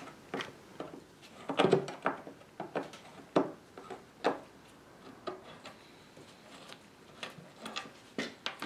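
Screwdriver backing a screw out of an oak table apron: scattered short clicks and scrapes of the blade in the screw slot and the screw turning in the wood, with a few louder knocks in the first half.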